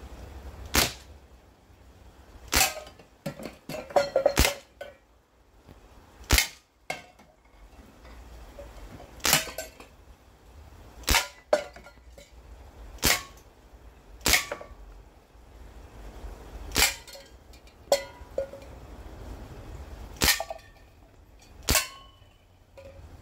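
Crosman 1077 CO2 air rifle firing .177 pellets, a sharp pop every second or two, with a quick semi-automatic run of about five shots about three seconds in. Several shots have a brief metallic ring after them.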